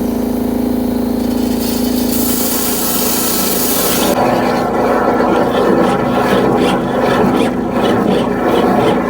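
High-pressure drain-cleaning jetter running with a steady mechanical hum. A loud hiss of spray comes in about two seconds in and drops away at about four seconds, leaving a rougher rushing, scraping noise over the hum.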